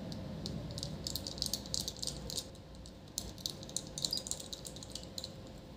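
Small screwdriver turning a screw into a laptop display's metal hinge: quick, irregular light clicks and ticks of the bit and screw, coming in clusters.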